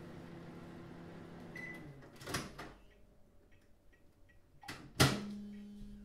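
Microwave oven running with a steady hum that stops about two seconds in, just after a short beep. Its door is then clicked open and, about five seconds in, shut with a loud clunk, after which a low hum carries on.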